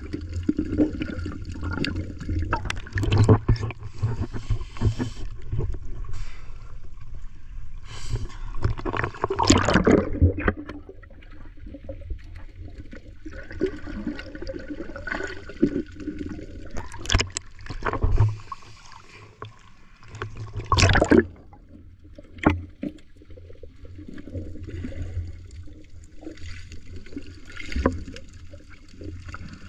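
Sea water heard with the microphone under the surface: a muffled low sloshing and gurgling, with several louder sudden rushes of water noise, the strongest about ten and twenty-one seconds in.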